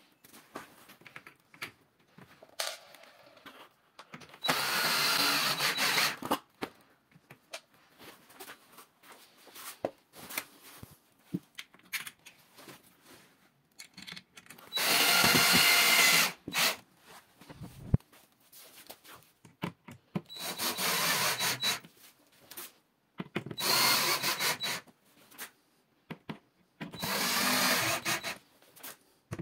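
Parkside cordless drill-driver driving screws in five short runs of about two seconds each, with small clicks and knocks of handling in between.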